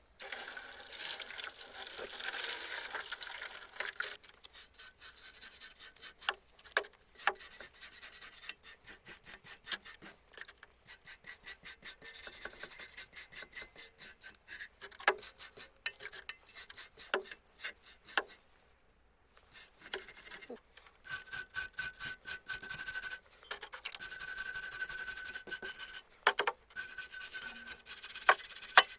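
Hand filing or abrasive rubbing on the stove's steel, in repeated back-and-forth rasping strokes a few times a second. The strokes come in runs broken by short pauses.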